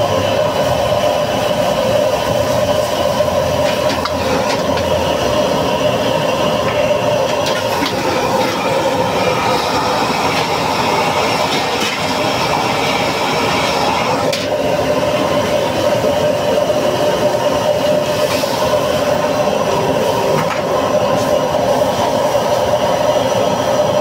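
High-output gas wok burner running at full flame, a loud steady roar, with food sizzling in the hot wok and a few sharp clinks of a metal ladle against the wok.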